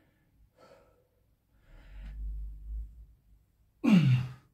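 A man breathing hard from exertion during a long high-rep barbell squat set, short faint breaths and then a loud groaning exhale that falls in pitch near the end.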